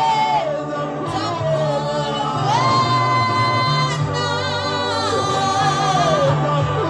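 Zulu gospel song: a singer holds long notes that slide up and down over a steady low accompaniment.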